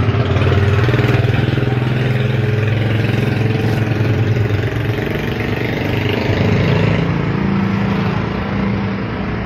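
A small engine running steadily nearby, its pitch stepping up a little about six and a half seconds in.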